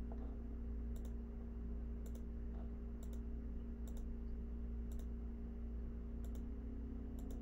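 Faint, evenly spaced clicks about once a second over a steady electrical hum.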